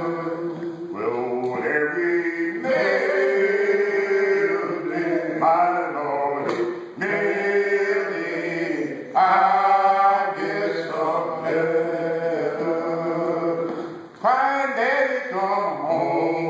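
Several men's voices singing a menhaden fishermen's work song (shanty) a cappella, a chant-like sung line in phrases broken by short pauses.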